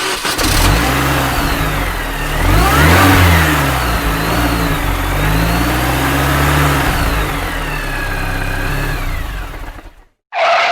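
Car engine started and revved, its pitch climbing and falling several times. It runs for about ten seconds, then cuts off.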